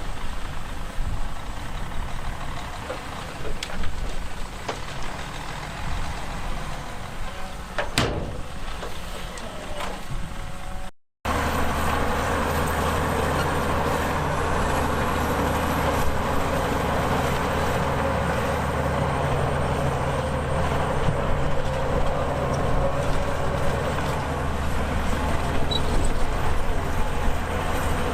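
Heavy diesel earthmoving machinery running: bulldozer and dump-truck engines at work. Just over a third of the way through there is a brief dropout, after which the engine sound is steadier and fuller.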